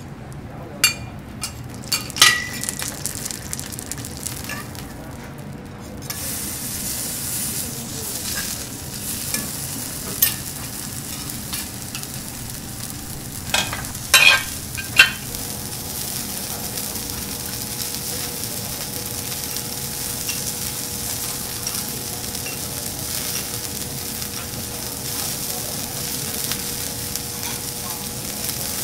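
Food sizzling on a teppanyaki griddle, growing louder about six seconds in, with a few sharp clinks near the start and again about halfway through.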